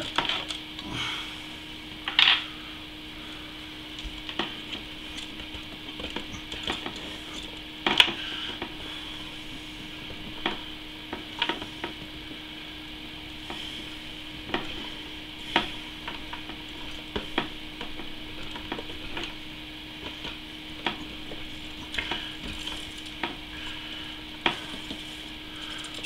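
Hands fitting vinyl tubing to the water pump's outlet fitting in a PC water-cooling loop: scattered small clicks, knocks and rubbing of plastic and metal parts, a couple of louder knocks about two and eight seconds in, over a steady low hum.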